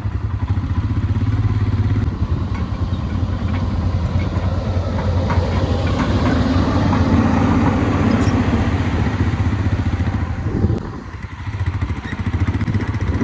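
Royal Enfield Himalayan's single-cylinder engine running steadily while riding over a rough dirt road. The engine sound dips briefly about ten and a half seconds in, then picks up again.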